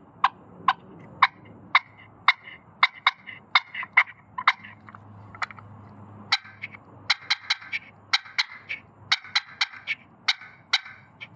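Push-pin turkey call of Macassar ebony and East Indian rosewood worked by hand in a string of short, sharp clucks, about two a second at first, then quicker runs of clucks after a short pause about five seconds in.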